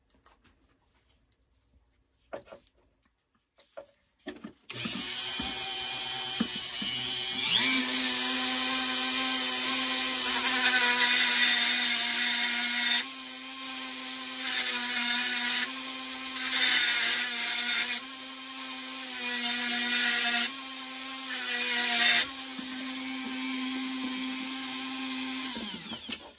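Dremel rotary tool with a cutoff wheel on its flex shaft, cutting a notch into a stuck steel screw head. After a few small clicks it starts up with a steady high whine, and the grinding noise swells in several bursts as the wheel bites into the metal. It winds down near the end.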